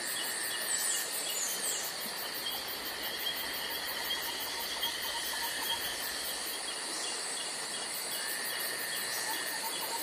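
Nature ambience: a steady chorus of insects chirping in an even repeating pattern, with a few short high bird calls in the first two seconds.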